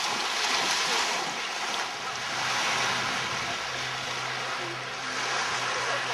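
Small lake waves washing onto a sandy beach, with wind on the microphone. A faint low steady hum comes in about two seconds in.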